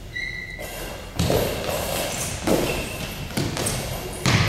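About four heavy thuds on a hardwood gym floor, spaced a second or so apart: a bell-filled goalball slamming down on its throws and players dropping to the floor to block. A high hissing rattle trails each impact.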